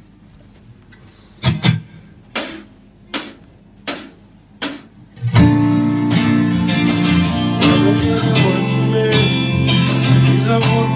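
Four evenly spaced clicks, about three-quarters of a second apart, count in a live band, which starts playing about five seconds in.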